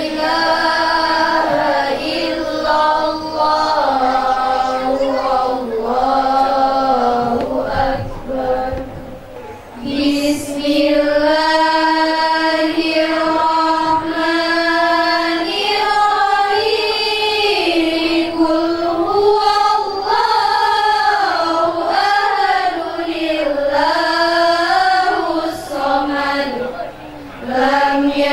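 A woman's voice chanting a religious recitation into a handheld microphone: one voice in long, held, ornamented melodic lines, with a pause for breath about eight seconds in and a short one near the end.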